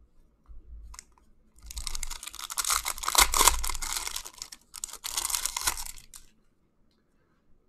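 Foil wrapper of a hockey card pack torn open and crinkled by hand, in two spells of crackling: a longer one from about one and a half seconds in, then a shorter one as the cards are pulled out.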